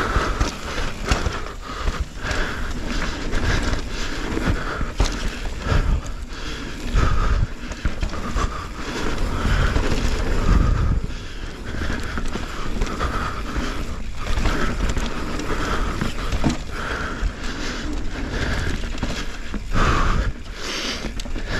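Mountain bike riding down a bumpy dirt trail: tyres rolling on dirt and the bike rattling, with many sharp knocks over bumps, under wind buffeting the microphone.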